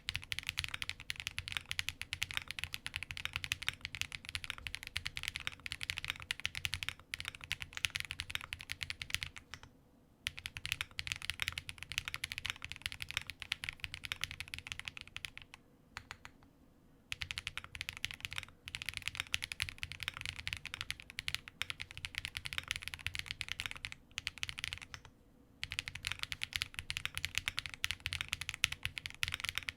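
Fast typing on a Link65 mechanical keyboard with lubed KNC Keys Green Jacket linear switches and PBT keycaps, built with a polycarbonate plate and with plate foam and case foam. The key strokes come in quick runs broken by a few short pauses.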